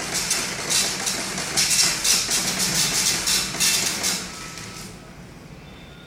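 Dot-matrix printer printing on continuous fanfold forms: the print head rasps across in rapid passes, line after line, and stops about five seconds in.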